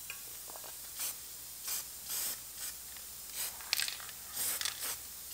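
Masking tape being peeled off a freshly primed steel hinge block in a string of short, quiet rips.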